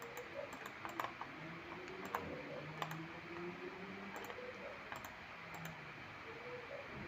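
Faint, irregular clicking of a computer keyboard and mouse, a dozen or so separate clicks, while a PCB footprint is being edited in CAD software.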